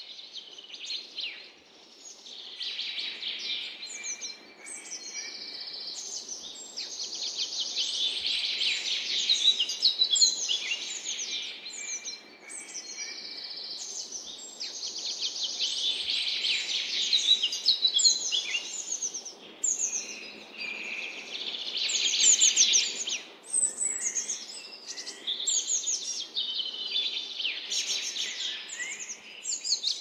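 Forest songbirds singing: high, rapid trilled and chirping phrases, each a couple of seconds long, repeating one after another with short gaps.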